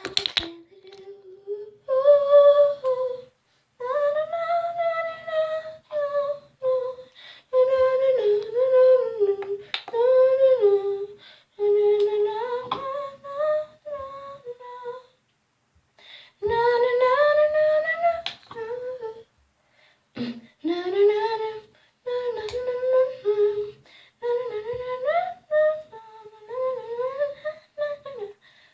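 A girl humming a tune without words in long held, wandering notes, phrase after phrase with short pauses, and a few faint clicks in between.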